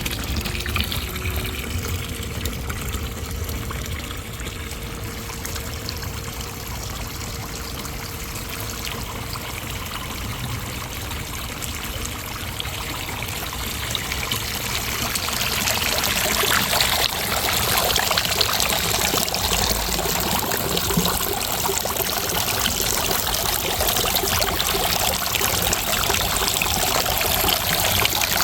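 Water trickling and pouring through a three-tiered cement garden fountain as its pump starts the flow; it grows louder about halfway through.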